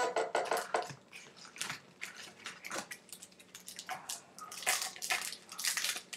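Trading cards and a foil card-pack wrapper being handled, with an irregular run of crinkling and rustling that thickens about two-thirds of the way through.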